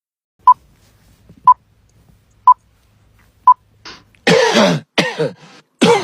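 Four short beeps, one a second, like a countdown timer, followed about four seconds in by three loud, harsh coughs.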